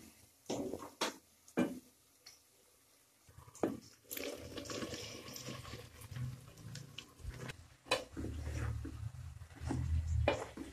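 Wooden spoon knocking and scraping against an aluminium pot of frying masala, then, about four seconds in, sliced ridge gourd tumbling from a plate into the pot with a rustling patter. Toward the end, the spoon clatters as it stirs the gourd slices into the masala.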